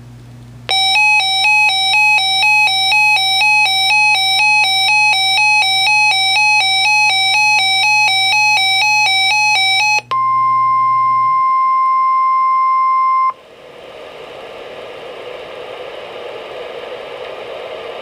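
Reecom R-1630 weather alert radio sounding its alert: a repeating electronic chime, about two rings a second for about nine seconds. It then cuts to a steady single tone for about three seconds, the NOAA Weather Radio 1050 Hz alert tone, followed by rising radio hiss as the broadcast audio opens for a flood watch.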